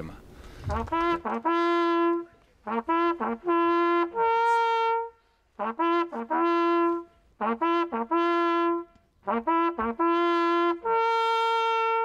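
A small brass hunting horn blowing a hunting signal on two notes, a lower and a higher one, in repeated phrases of quick short notes and longer held notes, several phrases ending on the higher note.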